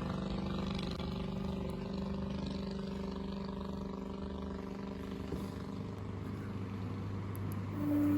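An engine running steadily with an even drone. Its tone shifts a little about five seconds in. Near the end a louder steady hum on one pitch starts up.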